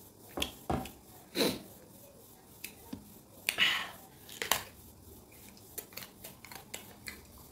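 Close-up crunching of a raw green mango being bitten and chewed: scattered crisp cracks, a fuller bite about three and a half seconds in, then quicker small chewing crunches near the end.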